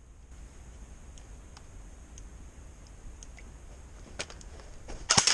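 Faint scattered clicks and handling noise, then a sharper click about four seconds in. Right at the end, a tuned MK18 airsoft electric rifle opens up in a rapid full-auto burst of evenly spaced shots.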